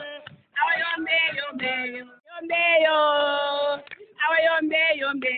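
Voices singing a repetitive campfire song in short sung phrases, with one long held note about halfway through.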